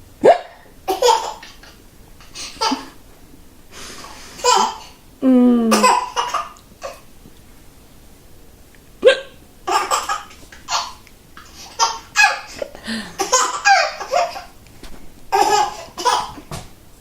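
A woman hiccuping repeatedly, and a nine-month-old baby laughing in short bursts in response to the hiccups.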